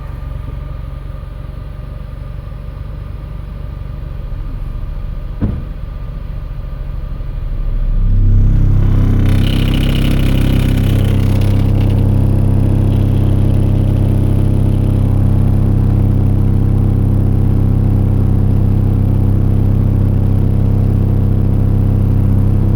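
Car subwoofers playing a steady 33 Hz bass test tone, driven by three Taramps amplifiers for a clamp-meter test. About eight seconds in the volume is turned up and the tone then holds loud and steady, with strong overtones above it.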